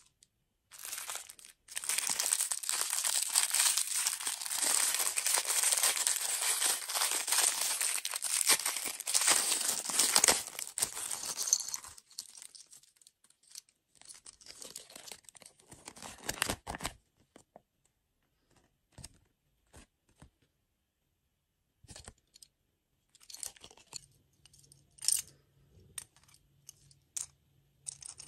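Clear plastic wrapper crinkling and tearing as it is opened, for about ten seconds, then scattered small clicks and taps of hard plastic toy pieces being handled and fitted together.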